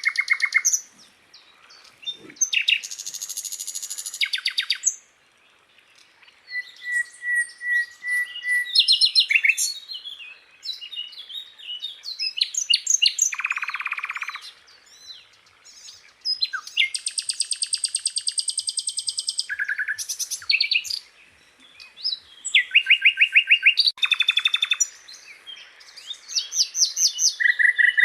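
Sikatan londo flycatcher singing a varied run of phrases: fast high trills, buzzy rattling notes and short whistled runs, with brief pauses between them.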